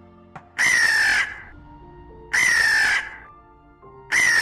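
A crow cawing three times, each caw about two-thirds of a second long and spaced evenly, over soft background music.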